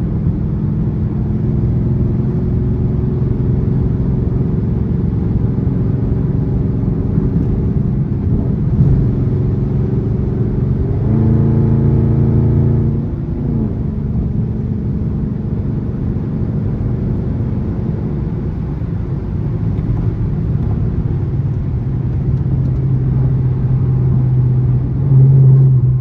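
Dodge Charger R/T's 5.7-litre HEMI V8 heard from inside the cabin through its catless, gutted exhaust while cruising, a steady low drone. About eleven seconds in the engine comes onto the throttle and gets louder for a couple of seconds, then drops back sharply, and it swells again near the end.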